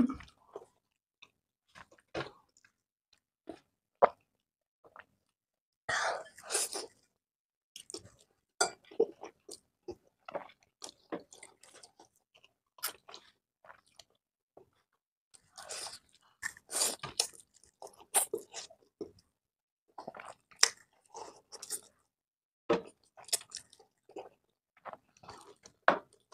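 Close-up eating sounds of spicy instant noodles being chewed: wet mouth smacks and short chewing sounds in scattered bursts with pauses between them. There are a few longer, noisier stretches, about six seconds in and again around sixteen to eighteen seconds.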